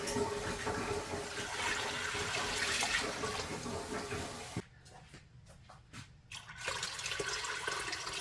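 Water pouring for a pot of dried pinto beans, in two spells: a long pour for about four and a half seconds, a pause of about two seconds, then pouring again near the end.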